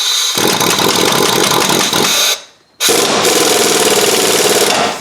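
Impact wrench running a ball joint press screw in two bursts with a short pause between them, pressing a lower ball joint into the steering knuckle.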